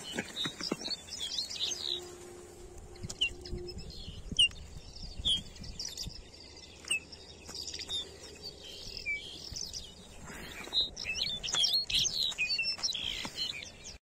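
Small songbirds calling: many short, high chirps and whistled notes, busiest in the last few seconds, with a few brief clicks and rustles.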